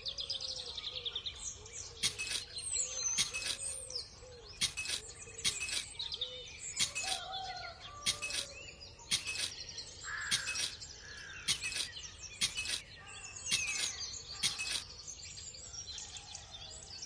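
Birds chirping and whistling, with a sharp click about once a second.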